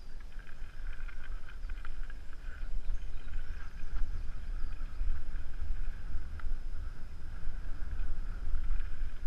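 Wind buffeting the helmet camera's microphone over the rumble and rattle of a mountain bike rolling along a gravel and dirt trail, with scattered small clicks and knocks from the rough ground.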